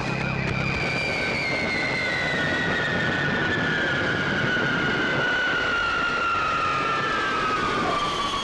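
Jet airliner's engines: a steady rushing noise with a high whine that falls slowly in pitch, as the plane passes or comes in.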